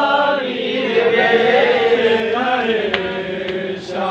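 Men's voices chanting a Muharram mourning lament, with long held and gliding notes.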